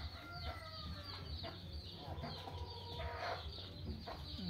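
Several birds calling at once: rapid short high chirps throughout, with a few longer held notes around the middle.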